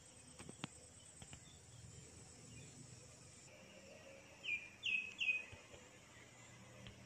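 A bird calling three times in quick succession a little past the middle, each call a short note dropping in pitch, over a quiet background. A few faint clicks near the start.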